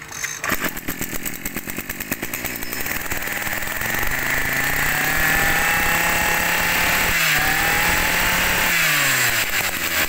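Two identical 32 cc Maruyama two-stroke brush cutter engines pull-started together. They run rough and uneven at first, then settle into a steady fast idle about four seconds in. Near the end the engine pitch drops.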